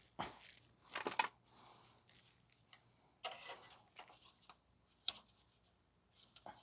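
Faint, scattered clicks and clinks of hand tools on metal in short irregular bursts, from work fitting a clamp to a loose exhaust heat shield.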